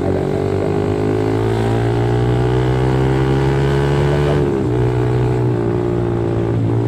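Yamaha R15 V3's 155 cc single-cylinder engine running through an aftermarket R9 racing exhaust, loud, while the motorcycle accelerates. The engine note climbs steadily, drops at an upshift about four and a half seconds in, then climbs again in the next gear.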